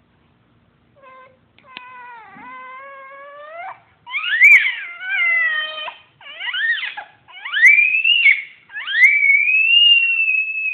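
A baby's high-pitched scream sounds. About a second in, a lower drawn-out whine, then a run of shrill squeals that rise and fall in pitch, the last held for nearly two seconds.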